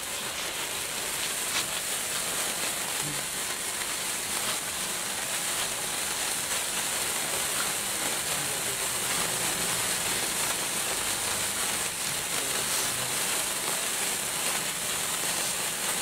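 Several colour sparklers (red, green, gold and electric) burning together with a steady fizzing hiss and a few small crackles.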